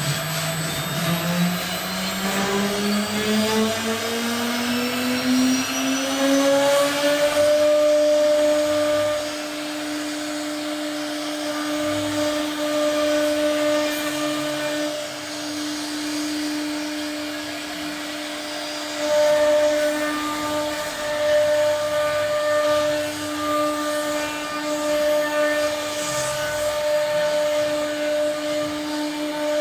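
CNC router spindle spinning up, its whine rising steadily in pitch for about seven seconds, then running at a steady high speed with a constant whine over a rushing noise that swells and eases.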